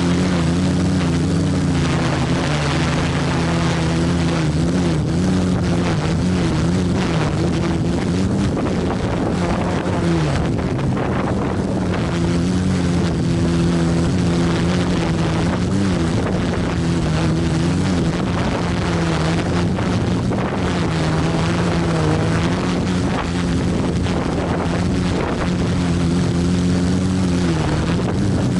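Multirotor drone's motors and propellers whining steadily, heard from its own onboard camera, with the pitch wavering up and down as the flight controller keeps changing motor speeds to hold position in gusty wind. Wind buffets the microphone.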